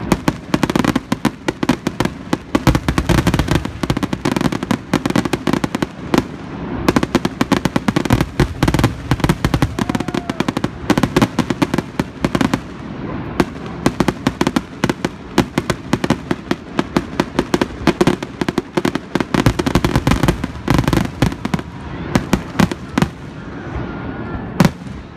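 Fireworks finale barrage: aerial shells bursting in a dense, rapid string of bangs, many a second, with no let-up. The bursts thin out near the end, where one sharp bang stands out.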